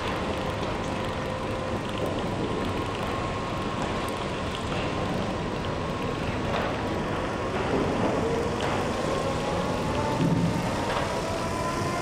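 Sennebogen 735 pick-and-carry material handler driving with a bundle of logs in its grapple: steady machine noise with a faint whine that rises in pitch in the second half.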